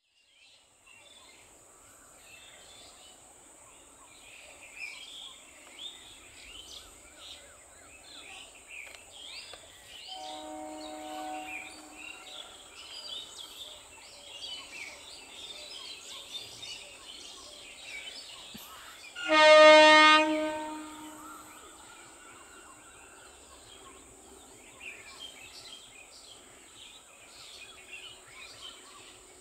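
Birds chirping over a steady high-pitched whine. Partway through, an electric multiple unit's horn sounds: a quieter tone about ten seconds in, then one loud blast of about a second and a half as the EMU local starts to pull away from the platform.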